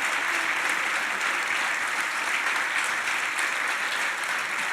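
Audience applauding steadily, fading a little toward the end.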